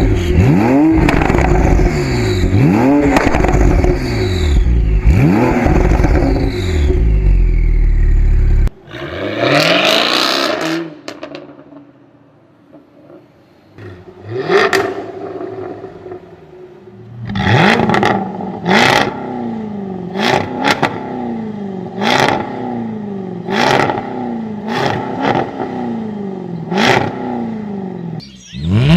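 Performance car exhaust revved in repeated quick blips, each followed by sharp crackles and pops on the overrun. About nine seconds in it cuts to another car. After a lull, that car is blipped about once a second, with a burst of pops after each rev.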